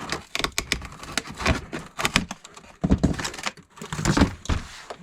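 Packaging being handled to free a toy RC monster truck held by zip ties: irregular clicks and knocks with plastic and cardboard crinkling.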